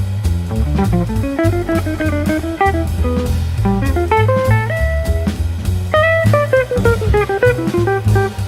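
Background music: plucked guitar melody over bass and a drum kit beat, in a light jazz-blues style.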